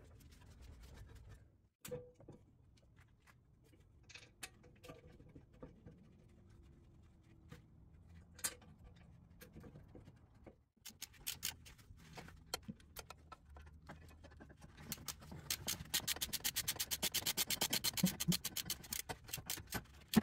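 Scattered small clicks and knocks of a brake caliper being handled onto its mount, then, over the last few seconds, a ratchet wrench clicking rapidly and evenly, about ten clicks a second, as a 16 mm caliper bolt is run in.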